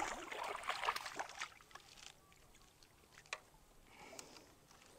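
Water splashing and sloshing close by for about the first second and a half, then quiet with a sharp click a little past three seconds.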